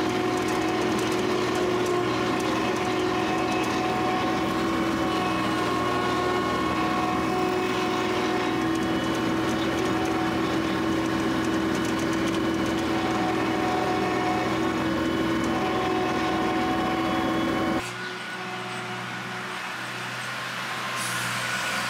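An engine running steadily at a constant speed, with a steady whine in it; the sound cuts off suddenly about four seconds before the end, giving way to quieter background noise.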